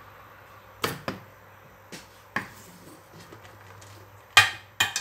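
Kitchen knife chopping leafy greens on a wooden cutting board: a handful of sharp, irregular knocks, the two loudest near the end.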